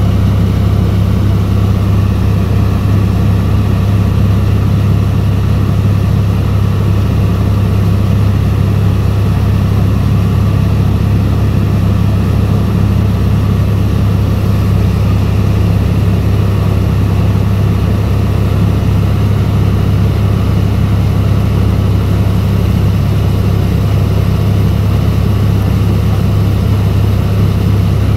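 Boat engine running steadily at constant speed: an even, unchanging low drone.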